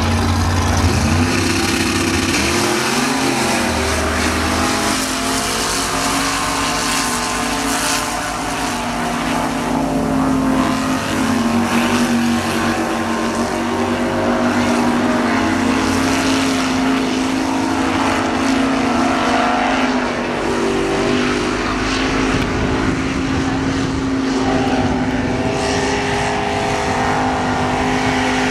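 Racing swamp buggy engines at full throttle. The engine note climbs in pitch a few seconds in as the buggies launch, then holds a steady high note as they run through the water.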